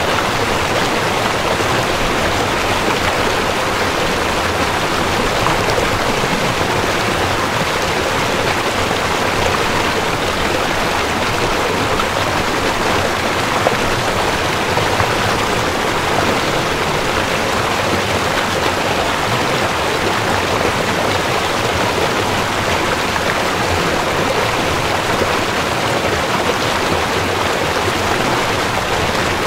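Steady noise of a river flowing.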